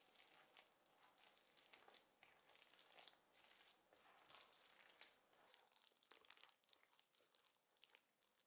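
Spatula stirring and folding shredded cabbage, carrot and chickpeas into a thick batter in a ceramic bowl. Faint, continuous wet mixing made of many small crackles and scrapes.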